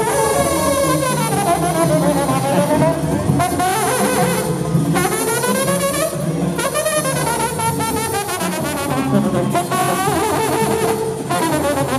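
Trombone solo in live banda music: fast runs that sweep up and down again and again, over the band's steady low accompaniment.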